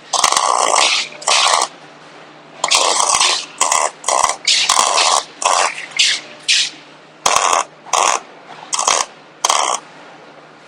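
MIG welder laying short tack welds: about a dozen bursts of arc crackle, each a fraction of a second to about a second long, starting and stopping sharply over a faint steady hum.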